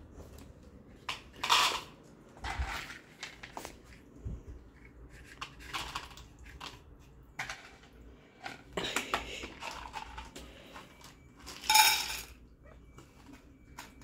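Stainless steel cat food bowl clinking and clattering in a series of short knocks, with a loud ringing clang about twelve seconds in.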